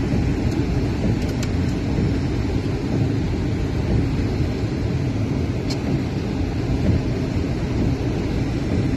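Thunderstorm wind and rain: a steady, low rushing noise, with wind buffeting the microphone.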